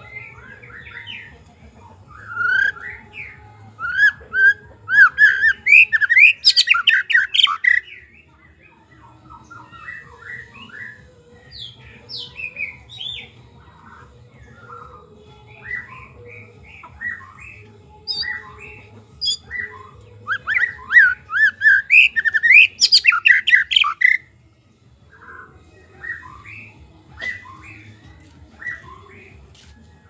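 White-rumped shama singing: two loud runs of rapid, varied whistled notes, one starting about two seconds in and one about twenty seconds in, with softer scattered notes between them.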